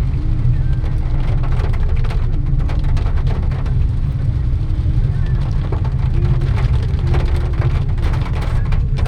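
Steady low rumble of a road vehicle driving, with faint scattered clicks over it.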